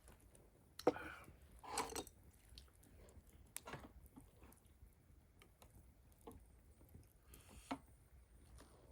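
A person chewing food quietly, with a few sharp clicks, about a second in, after three and a half seconds and near the end.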